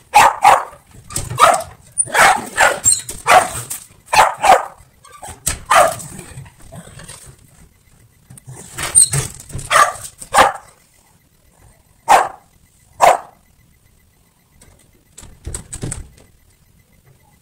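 Shetland sheepdog barking repeatedly at a door's mail slot: a fast run of barks over the first seven seconds, another cluster about nine to ten seconds in, then a few single barks spaced out and dying away.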